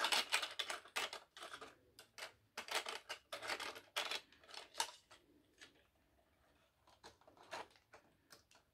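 Irregular plastic clicks, taps and rattles as a model train is handled and set onto its track. The clicks are busy for the first few seconds, then thin out to a few scattered taps.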